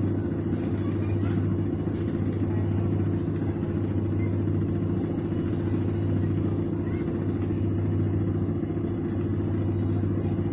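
Videocon V-NA-51 top-loading washing machine running, its motor giving a steady, even hum. The machine is working normally again after a rat-chewed wire was rejoined.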